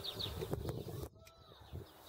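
Light clicks of steel tools and hub parts being handled, with small birds chirping in the background near the start.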